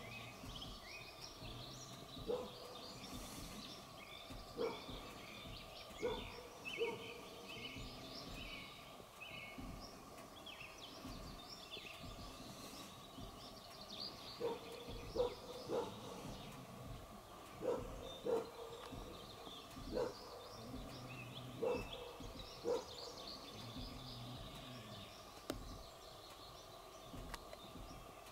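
Songbirds singing and chirping, with short sharp barks every second or two that are the loudest sounds.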